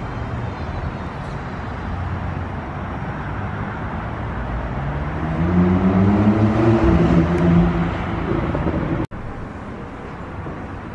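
Street traffic: a steady hum of road noise, with a motor vehicle's engine passing and growing louder from about halfway through before fading. The sound cuts off abruptly for an instant near the end.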